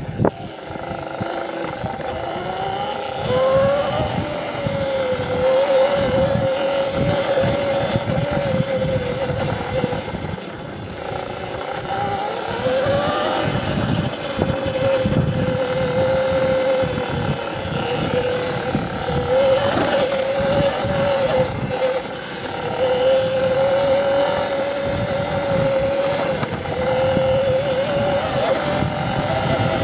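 CZEM Drill One electric dirt bike's motor whining as it rides, the pitch climbing twice as it picks up speed and otherwise holding fairly level, with brief dips. Underneath is rough wind buffeting the microphone.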